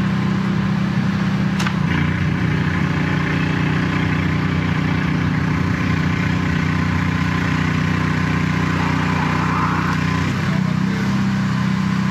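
Drain jetting machine's engine and pump running steadily at work, a constant low drone that shifts slightly in tone about two seconds in and again near the end.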